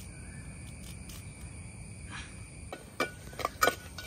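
Steady trilling of crickets or other insects, and from about three seconds in a quick run of sharp clicks and knocks as a metal ladle stirs in a clay cooking pot.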